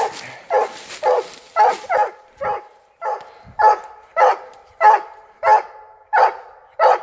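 Hunting hound barking treed at the base of a tree, a steady string of short barks about one every half second with a brief pause about three seconds in: the tree bark that signals the dog has its quarry up the tree.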